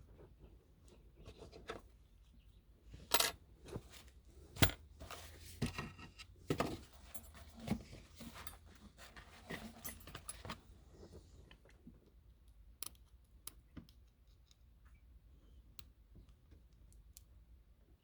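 Small metallic clicks, scrapes and clinks of a shim being worked around a pin-tumbler lock core during disassembly. The sharper clinks fall between about three and eleven seconds in, with only faint ticks after that.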